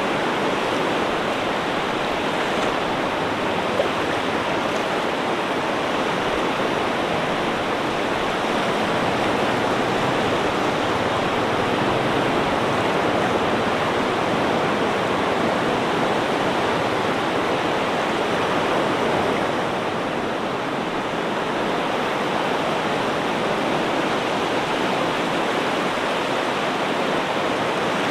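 Ocean surf washing in a continuous steady rush of water, easing off slightly about twenty seconds in.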